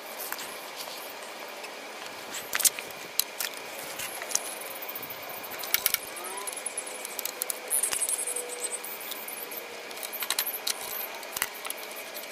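Scattered sharp clicks and light clinks of hands handling wiring connectors, clips and cables on a Nissan Leaf electric drive unit.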